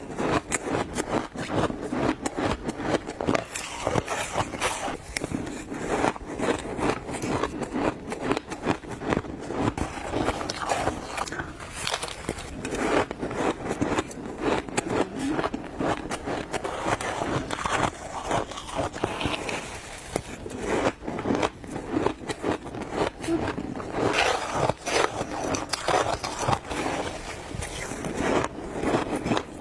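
A person biting and chewing crunchy ice in rapid, continuous crunches and cracks.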